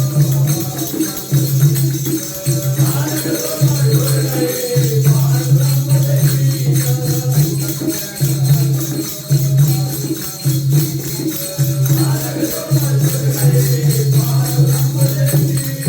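Sikh devotional hymn singing (kirtan) by a group, with a fast, even jingling percussion beat and a low repeated note beneath.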